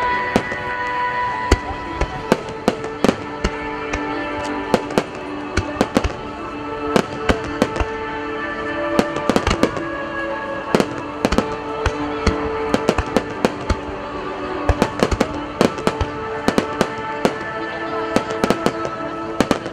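Star mine fireworks barrage: aerial shells bursting in rapid volleys of sharp cracks, some in quick clusters, over music played with the computer-timed show.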